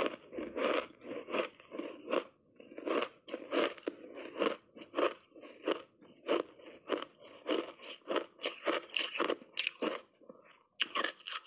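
Ice being bitten and chewed: a run of crisp crunches, about two or three a second, with a short pause near the end.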